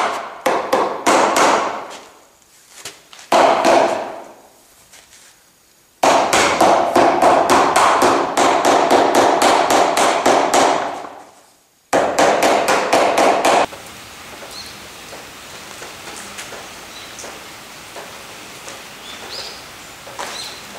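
A white-headed mallet rapidly tapping a softwood rail down onto its tenons to close mortise-and-tenon joints. The strikes come in runs of about five or six a second, with short pauses between. About 14 seconds in the tapping stops, leaving a low, steady noise.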